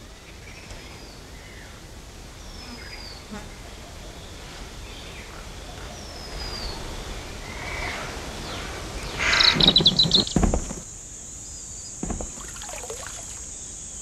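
Wild birds calling in natural surroundings: a few faint, thin falling whistles, then a louder, harsh burst of rapid repeated notes about nine to ten seconds in. After that a steady high buzz of insects such as crickets sets in.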